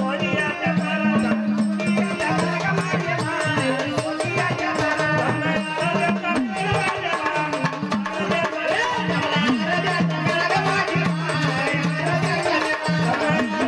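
Live Marathi devotional folk song to the goddess Ambabai: singing over a small hand drum and jingling rattle-type percussion, heard through the stage PA.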